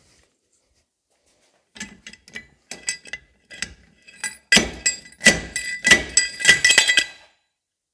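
Homemade slide hammer, an Audi brake disc used as the sliding weight, knocking an old rear wheel hub out of a Mercedes axle. A few light metal knocks about two seconds in are followed by a quick run of about ten hard, ringing metal-on-metal blows, which stop suddenly.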